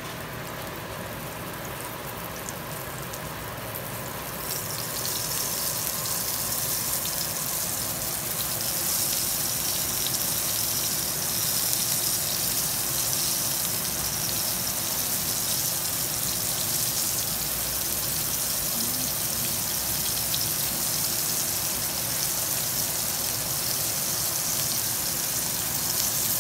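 Rava- and rice-flour-coated fish shallow-frying in hot oil in a flat pan: a steady sizzling hiss that grows louder about five seconds in, as more pieces go into the oil.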